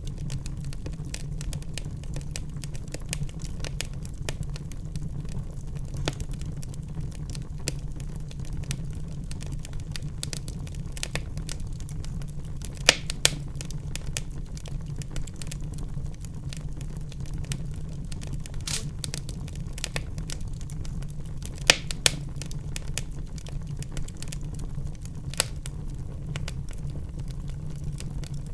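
Wood fire burning in a fireplace, crackling steadily over a low rumble of the flames, with a few louder pops about halfway through and again about three quarters in.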